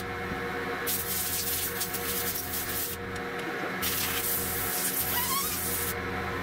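Compressed-air blow gun blasting dust and debris out of a chainsaw's sprocket and bar area as a first cleaning. The air comes in two long hissing bursts, one starting about a second in and another starting about four seconds in, each lasting about two seconds. A steady hum runs underneath.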